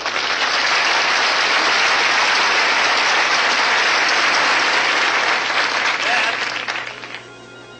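Studio audience applauding, the applause dying away near the end.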